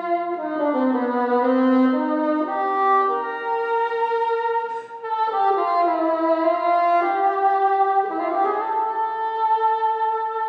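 Solo bassoon playing a melody in long held notes, with a brief break about five seconds in.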